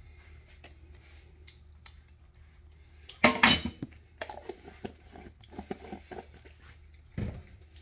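A metal knife clinking and scraping against a peanut butter jar and kitchenware, with one louder clatter about three seconds in and scattered light knocks after it.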